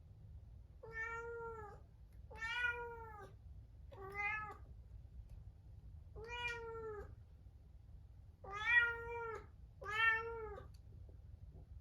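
Munchkin cat meowing six times in plaintive, sad-sounding calls, each under a second and arching slightly in pitch. They are the calls of a cat shut alone in a separate room.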